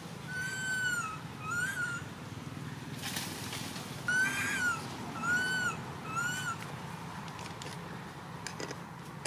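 Young long-tailed macaque crying: five short coo calls, each rising and then falling in pitch, two at first and then a run of three.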